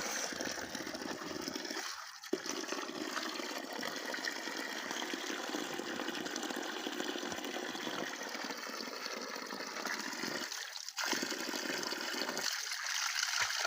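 Water pouring steadily out of a pipe outlet with a continuous rushing splash.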